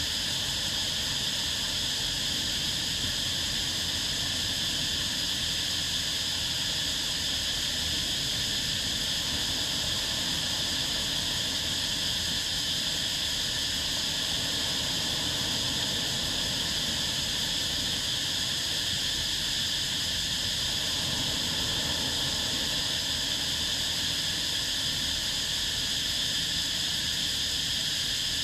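Steady, unbroken high hiss of an insect chorus, with no rise and fall over the whole stretch.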